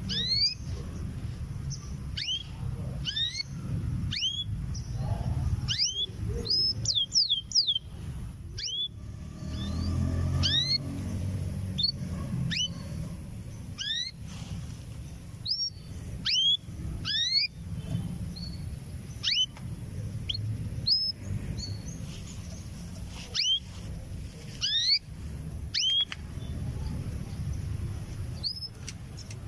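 Female canary calling, short upward-sweeping chirps roughly once a second with a quick run of them partway through, over a low rumble. In breeding, frequent calling like this is taken as a sign that the hen is ready to pair with a male.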